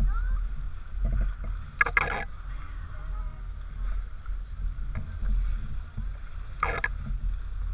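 Wind on the microphone and water rushing and splashing along a small boat's bow as it moves through open ocean swell, a steady low rumble. Two short bursts of a person's voice cut through, about two seconds in and near the end.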